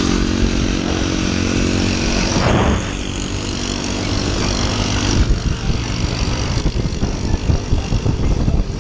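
Yamaha Aerox scooter engine running steadily while riding, a constant pitched hum. About five seconds in the steady tone fades and an uneven rushing noise with a jumpy level takes over.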